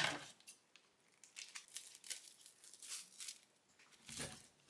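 Plastic food packaging crinkling and rustling in short, irregular bursts as takeout containers are unpacked, with a soft knock about four seconds in.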